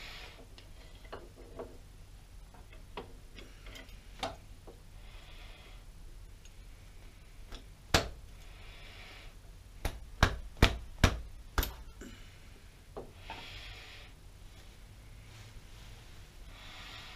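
Hand tools clicking and knocking on the metal cross slide of a Pratt & Whitney Model B lathe during reassembly: scattered light clicks, one sharp metallic knock about eight seconds in, and five sharp knocks in quick succession between about ten and twelve seconds in.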